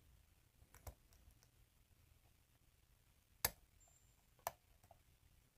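Faint metallic clicks of a lock pick working the pins of a 5-pin challenge lock cylinder under tension: a few sparse ticks, the loudest about three and a half seconds in and another about a second later, as pins are being set during single pin picking.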